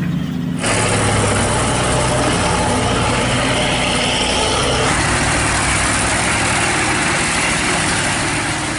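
Heavy vehicle engine running under a dense, steady hiss that starts abruptly about half a second in.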